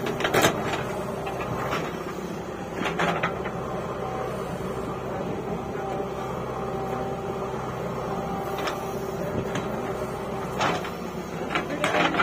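JCB 3DX backhoe loader's diesel engine running steadily under load as the backhoe dumps and digs soil. Sharp clanks and thuds from the bucket and falling earth break in several times, the loudest just after the start and near the end.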